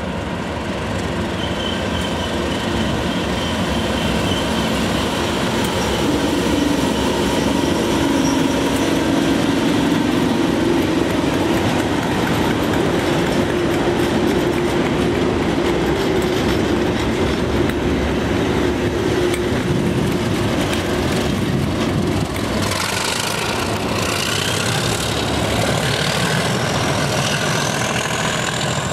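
Pair of Class 37 diesel locomotives passing at close range, their English Electric V12 engines running loud and steady. In the last few seconds a high wheel squeal rises steadily in pitch.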